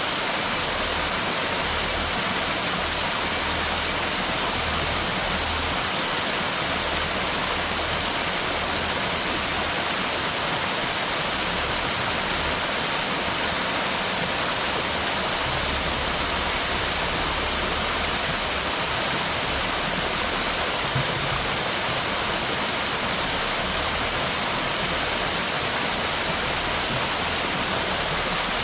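Water gushing from a natural spout and splashing down: a steady, unbroken rushing hiss.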